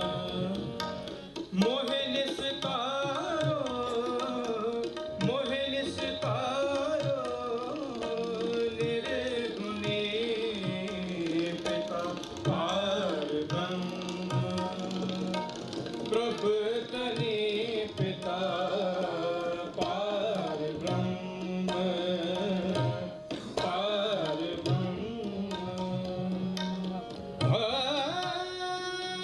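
Sikh kirtan: harmonium melody over a steady drone, with tabla strokes running through.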